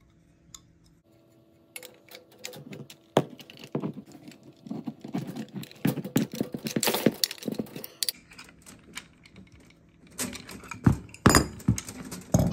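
Metal clinking and clattering of an adjustable wrench on brass fittings as a propane regulator is wrenched tight onto a stainless steel braided hose, starting about two seconds in. A few louder clanks come near the end as the regulator and hose are handled.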